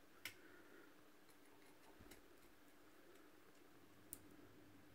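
Near silence with a few faint clicks and ticks of the glued-together plastic case of a Chipolo One tracker being pried apart, the clearest about a quarter second in, around two seconds in and about four seconds in.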